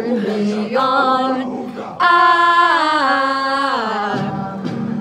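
A female voice singing. About two seconds in it holds a long, loud note, then slides down in pitch.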